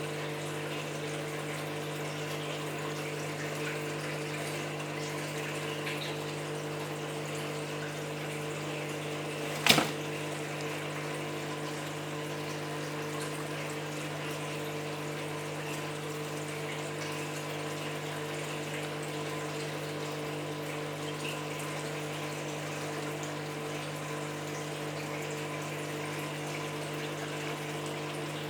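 Aquarium pump running with a steady hum over the sound of moving water, and one sharp knock about ten seconds in.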